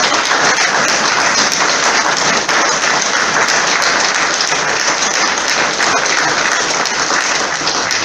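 Audience applauding: loud, steady clapping from many hands.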